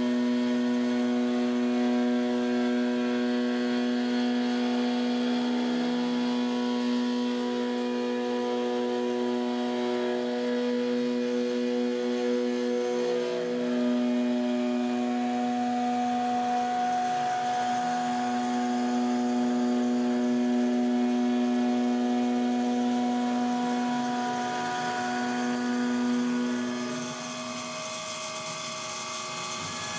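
CNC gantry mill's spindle driving a 1/2-inch two-flute carbide end mill at 8000 RPM through 6061 aluminium under flood coolant, in a full-depth traditional (non-high-speed) cut: a loud, steady pitched cutting tone with overtones, set by the teeth biting the metal. About 27 seconds in, the cutting tone stops and the sound drops to a quieter, higher whine.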